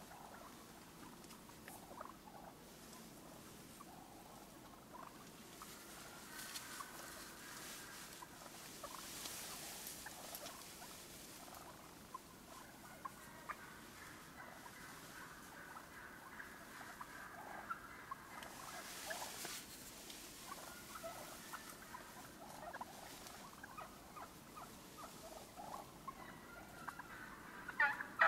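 Wild turkeys calling softly: short calls scattered throughout, with a louder cluster of calls at the very end.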